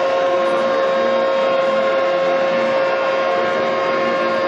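Steady, unbroken machinery hum with a constant pitched tone over a low rumble, as from a ship's engines.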